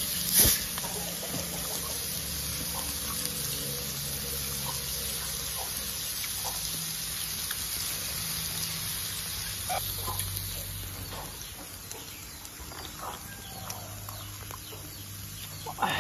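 A single sharp knock about half a second in, over a steady background hiss with scattered faint short chirps.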